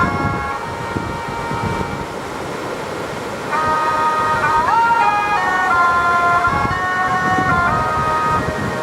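A melody of held notes stepping from pitch to pitch, one note sliding upward about five seconds in, over a steady low rumbling noise.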